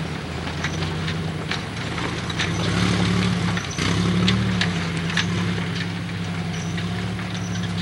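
Willys jeep engine running at low revs as it crawls over loose rock, picking up a little twice near the middle. Many short knocks and crunches of rocks under the tyres are mixed in.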